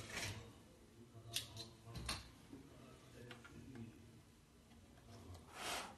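Faint clicks and taps at a phone-screen repair machine, with a short hiss at the start and a stronger hiss of about half a second near the end, as of its pneumatic air cylinders.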